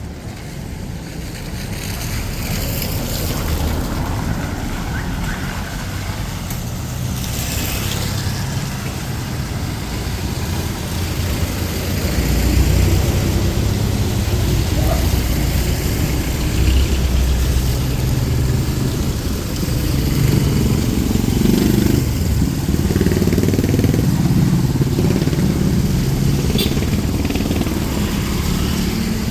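Street traffic: motor vehicle engines, motorcycles among them, running and passing close by. It grows louder about halfway through.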